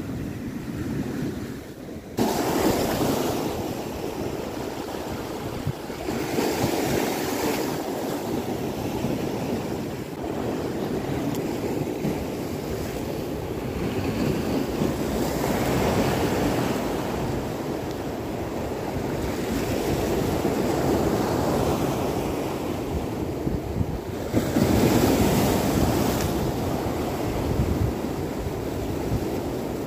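Sea surf breaking and washing over shoreline rocks, swelling into louder surges every few seconds, with a sharp rise about two seconds in.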